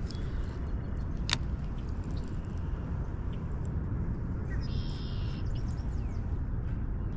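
Steady low outdoor rumble on the microphone, with one sharp click about a second in and a brief high chirping whir about five seconds in, as a baitcasting rig is cast and worked.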